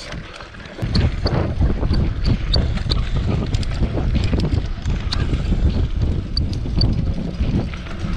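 A mountain bike rattling and rumbling over a rough dirt forest trail at speed, with wind buffeting the microphone; the loud rumble sets in about a second in.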